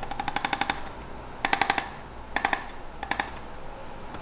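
Handheld electric chiropractic adjusting instrument firing rapid repeated thrusts against a dog's lower spine around L7, heard as four short bursts of fast clicking, the first the longest.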